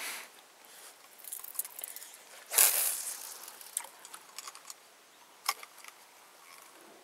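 Fishing rod and reel being handled and cast: a short whoosh about two and a half seconds in, among scattered small clicks and rattles of the reel, with one sharper click later on.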